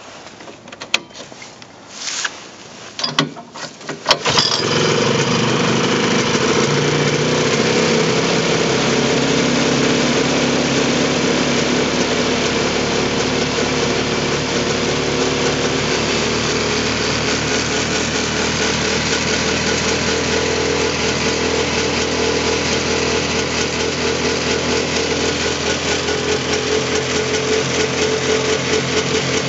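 1972 Ski-Zoom Rebel snowmobile's two-stroke engine being started: a few short bursts in the first four seconds, then it catches about four seconds in and idles steadily.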